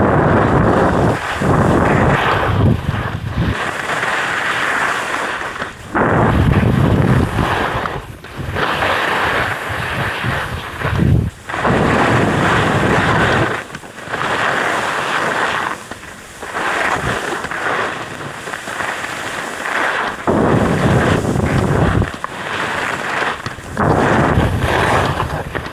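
Wind buffeting the microphone and skis scraping over groomed, packed snow on a fast downhill run. The noise swells and falls back every second or two, with the turns.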